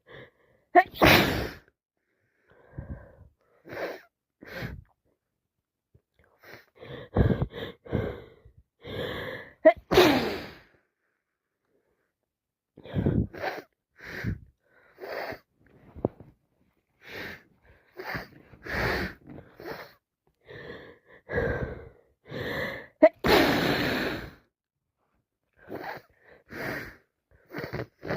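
A woman sneezing again and again, with gasping in-breaths between the sneezes; the loudest sneezes come about a second in, about ten seconds in and near the end. These are the repeated sneezes of a head cold on top of allergies.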